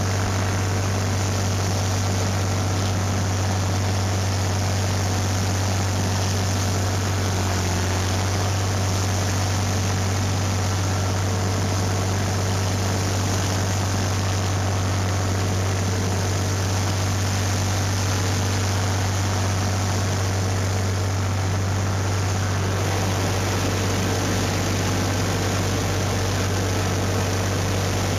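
Tractor engine running steadily at a constant speed with a strong low hum, under a steady hiss as the orchard sprayer works.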